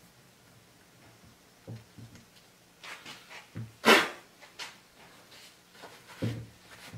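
Scattered short clicks and knocks of metal brake caliper parts being handled and repositioned on a small arbor press. One sharper, louder knock comes about four seconds in.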